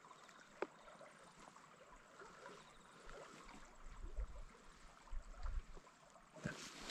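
Faint running water of a small river, with a single sharp click about half a second in and a few low bumps later on.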